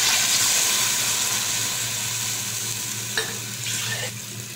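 Water poured into a hot pot of oil-fried onion, spice masala and moong dal, sizzling and hissing hard at first and dying down over a few seconds as the water settles. A light knock comes about three seconds in.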